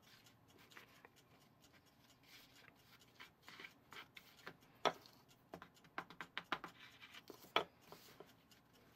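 A small spatula stirring and scraping a stiff butter, sugar and flour mixture in a plastic bowl: faint scraping with scattered light taps, the sharpest about five seconds in and again past seven seconds.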